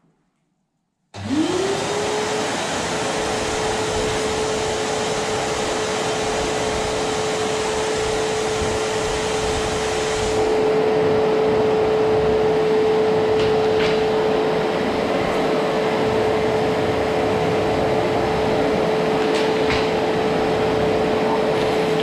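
Rowenta vacuum cleaner switched on about a second in, its motor whine rising quickly to one steady pitch and then running steadily as the floor nozzle works over a wooden floor. The sound shifts slightly, a little louder, about ten seconds in, and a few faint clicks come later.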